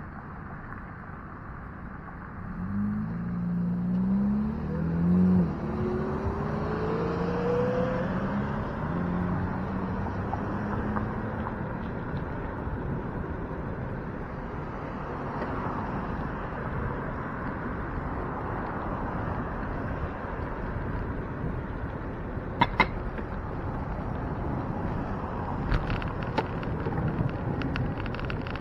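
A motor vehicle accelerating past from about three seconds in, its engine note rising in pitch, over steady wind and road noise from a moving bicycle, with a few sharp clicks near the end.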